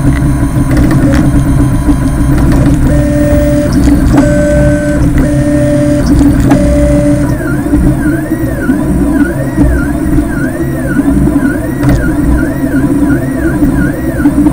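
A 3D printer's stepper motors whining as the print head moves. In the first half, short steady tones at set pitches start and stop with each move. From about halfway, the pitch rises and falls in quick repeated strokes, a little under two a second, as the head runs back and forth.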